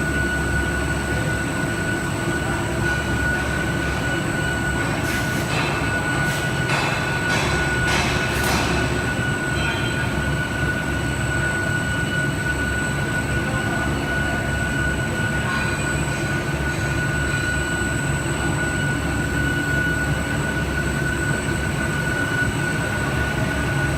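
Five-layer bubble wrap laminating machine running: a steady mechanical drone with a constant high whine, and several short sharp noises between about five and nine seconds in.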